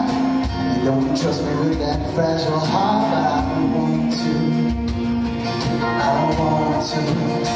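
Live acoustic band: two acoustic guitars strummed with a djembe beating along, and male voices singing held notes.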